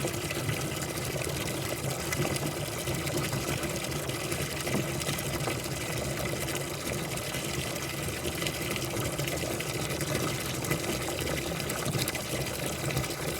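Dishwasher running: water splashing and trickling inside the tub over a steady pump hum.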